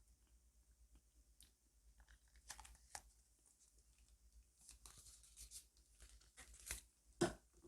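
Kitten feeding noisily on formula milk: faint quick smacking and clicking sounds, with a few louder clicks scattered through and the loudest near the end.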